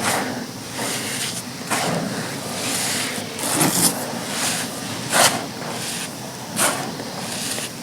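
Compressed sand chunks being crushed and crumbled by hand: a crunch about every one and a half seconds over a continuous gritty rustle of sand grains.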